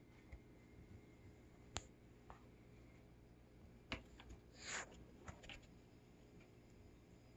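Quiet room with a few faint taps and clicks and one brief scratchy rustle about halfway through, as a cat bats a small ball toy around a cardboard scratcher on carpet.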